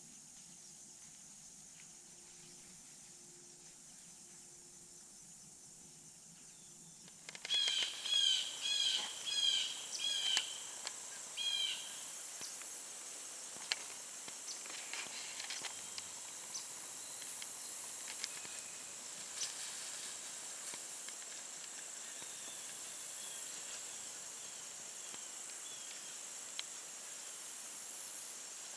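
A bird calls in a quick series of loud, repeated chirping notes for about four seconds, starting about seven seconds in. After that a steady high-pitched insect trill, typical of crickets, runs on with a few scattered ticks. Before the calls there is only quiet room tone with a faint low hum.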